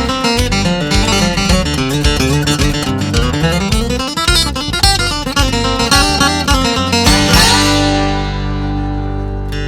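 Country music instrumental: fast picked acoustic guitar over a bass line, settling into held strummed chords about three-quarters of the way through.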